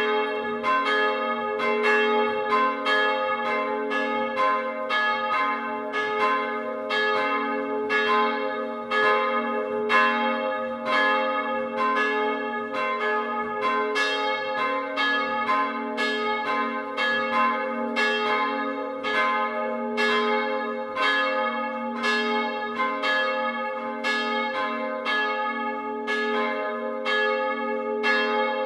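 Full peal of the two late-17th-century bronze church bells, rung automatically and heard close up in their wooden roof-truss frame. Their strikes overlap in an uneven rhythm of about two a second over a steady ringing hum.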